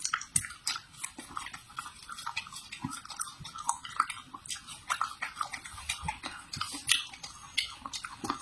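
Close-up chewing of crisp raw vegetables, with irregular crunches and crackles several times a second.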